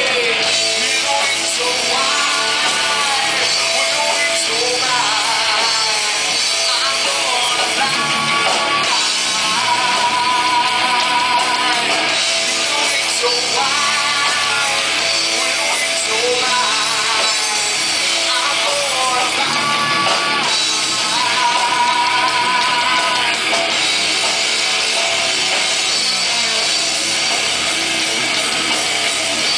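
Live rock band playing a song: a singer's voice over electric guitars and a full band, with long wavering held notes at a couple of points.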